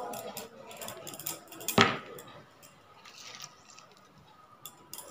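Lemon squeezed by hand over a glass mixing bowl: scattered light clicks and clinks, with one sharp knock about two seconds in.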